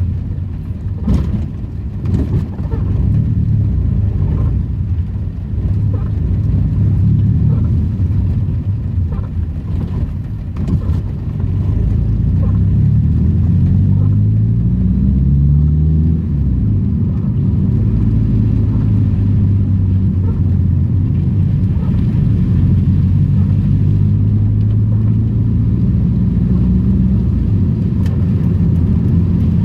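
Old Daihatsu Charade's engine running while driving. It revs up in rising steps about twelve to sixteen seconds in, then pulls at a steady pitch, with a few light knocks in the first few seconds.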